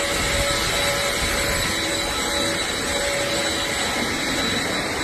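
A large powered machine running steadily: an even, loud rushing noise with a constant high whine over it.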